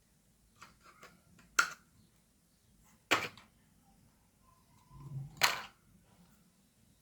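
Clicks and knocks of small objects being handled on a workbench: three sharp knocks spread through, with fainter ticks between.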